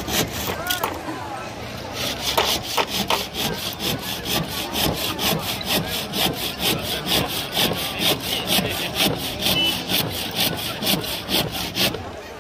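Fast, even rasping strokes, about four a second, over the chatter of a crowd. They pause briefly about a second in and stop near the end.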